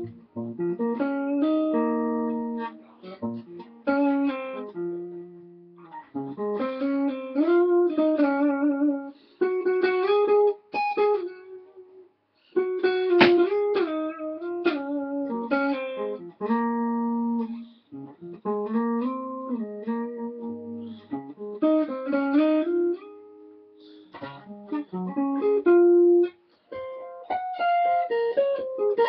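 Ibanez RG1527 seven-string electric guitar with Seymour Duncan Full Shred 7 pickups, played in single-note melodic lead phrases with bends and vibrato. The phrases are separated by short pauses, mostly in the guitar's middle register.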